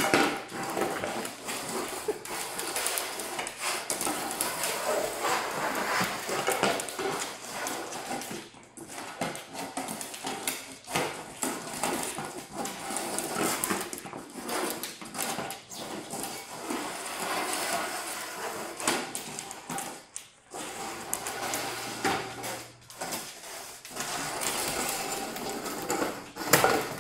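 A dog's food bowl clattering and scraping on a hardwood floor in irregular knocks as a golden retriever paws and noses it, trying to flip it over.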